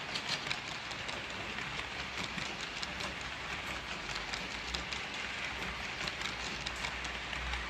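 Freight train running past, a steady rushing noise with many short clicks from the wheels on the rails.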